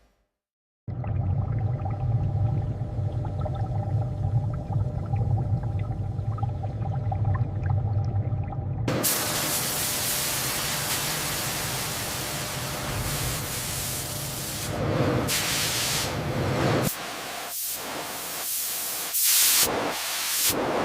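Low steady rumble, then a loud hissing spray starts suddenly about nine seconds in and breaks into several short blasts near the end.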